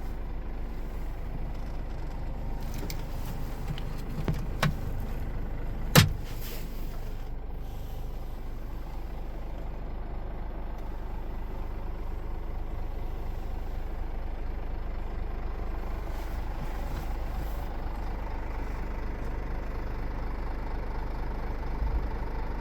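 2016 Scania R410 truck idling, its engine and air compressor running steadily. A single sharp snap comes about six seconds in, with a couple of fainter clicks just before it.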